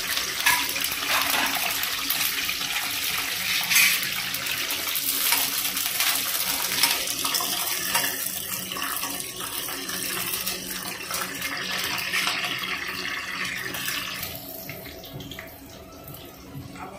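Curry leaves and green chillies sizzling in hot oil in a kadai, with a metal spoon stirring through them and a few sharp clicks. The sizzle dies down near the end.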